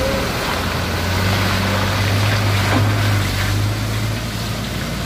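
Nissan Diesel CDA260 truck's six-cylinder turbo diesel engine running as the truck pulls away, a steady low hum under an even rushing noise.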